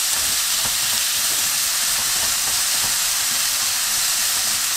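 Diced potato, carrot, onion and zucchini sizzling steadily in oil in a nonstick wok as they are stir-fried with wooden chopsticks, cooking until the potato is done.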